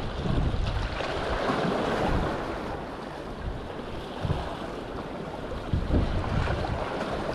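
Sea surf washing onto the beach in strong wind, with wind gusting over the microphone as a low, uneven rumble. The wash swells about a second in and eases off after a couple of seconds.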